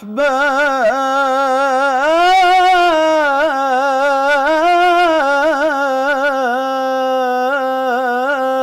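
A man singing an Arabic nasheed unaccompanied, drawing one vowel out into a long melismatic line with quick ornaments and vibrato, with no break for breath.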